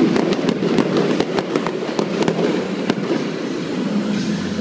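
Aerial fireworks bursting: a rapid, irregular series of sharp cracks and bangs, about a dozen in a few seconds, over a continuous low rumble.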